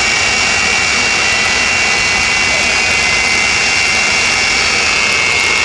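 Twin jet engines of a jet-powered fire truck running steadily: a loud, even rush of exhaust with a high, unchanging turbine whine.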